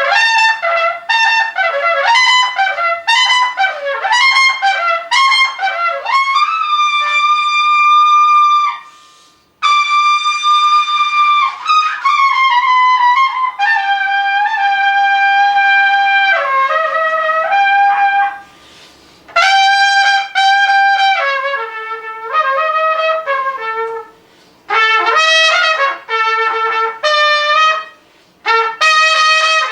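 Unaccompanied trumpet solo: a run of quick, short notes, then long held high notes, with brief pauses between phrases.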